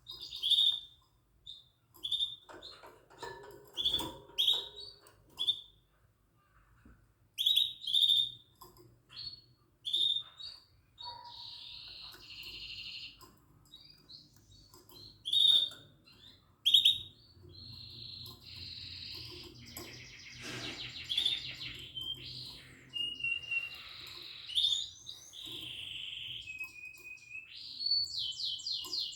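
Yellow mosaic canaries chirping in short, high calls that build into longer trilled song phrases.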